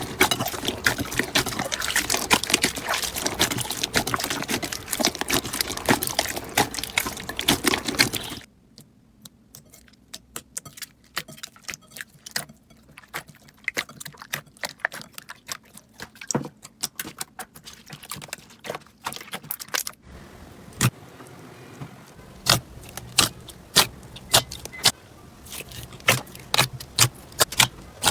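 Slime being squeezed and pressed by hand, crackling and popping. A dense run of crackles cuts off about eight seconds in to sparse, quieter clicks, and later sharper pops come about twice a second.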